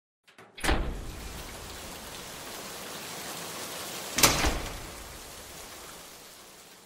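Two mechanical clunks from a cassette deck, the second about three and a half seconds after the first, with a steady tape hiss between them. After the second clunk the hiss fades out.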